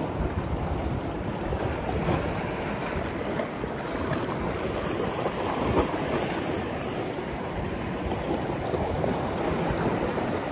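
Sea surf washing steadily, with wind buffeting the microphone.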